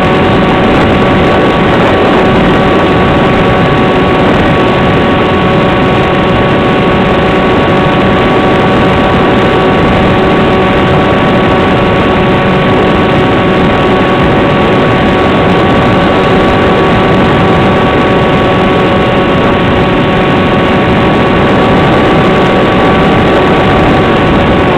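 Electric motor and pusher propeller of an AXN Floater Jet RC plane, running steadily at constant throttle in flight. It is a loud, even whine with a rushing noise beneath it.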